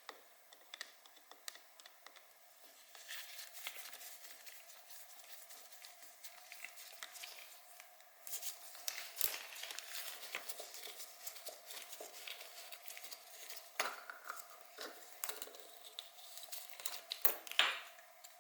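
Rustling, crinkling and light clicks of parts and wiring being handled by hand while a motorcycle is taken apart, with a few louder clicks near the end.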